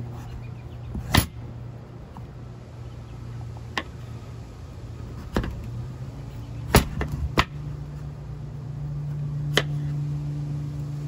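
Chef's knife slicing down through raw butternut squash and knocking onto a plastic cutting board, about six sharp knocks spaced one to two and a half seconds apart. A low steady hum runs underneath, going a little higher about two-thirds of the way through.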